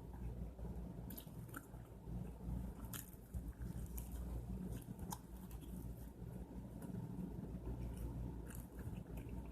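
A person chewing and biting food close to the microphone, with scattered small crunches and mouth clicks over a steady low hum.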